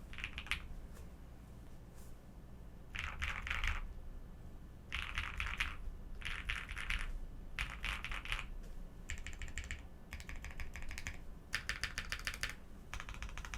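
Mechanical keyboard with Durock POM linear switches, its keys tapped one at a time in rapid short bursts of clicks, about eight bursts with pauses between.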